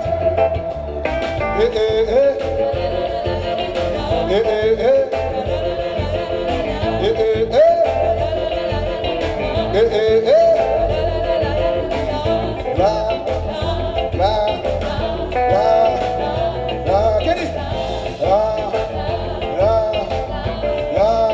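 Live band music: a lead melody that slides up into its notes again and again over a steady bass and drum groove.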